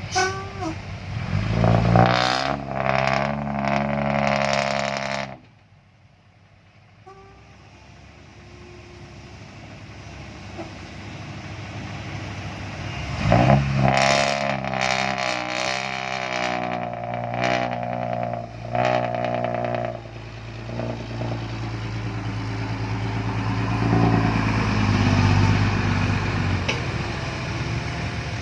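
Komatsu PC130 excavator's diesel engine running and revving as the machine works, rising in two loud spells. About five seconds in it drops suddenly to near quiet, then builds back up to a steady run.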